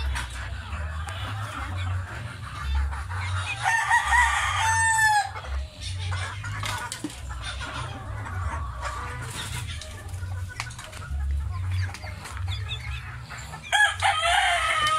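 Roosters crowing, once about four seconds in and again near the end, over hens clucking. A steady low rumble runs underneath.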